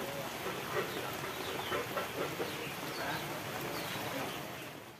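Steady rain falling on pond water, with faint voices chattering in the background; the sound fades away right at the end.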